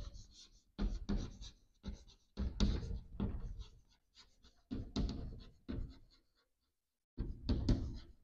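Chalk scratching and tapping on a chalkboard as a long word is written by hand, in bursts of short strokes with brief pauses between letters.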